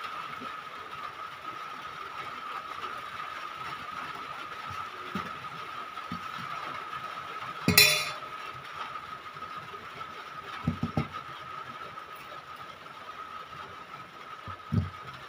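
A steady high whine over a low hiss, broken by one sharp knock about eight seconds in and a few soft thumps later, the knocks and thumps from a handheld phone being moved about while a banana is peeled.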